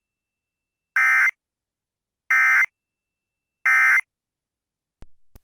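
Emergency Alert System end-of-message data bursts: three short, identical buzzy data tones about 1.3 s apart, the SAME code that closes an EAS test. Two faint clicks follow near the end.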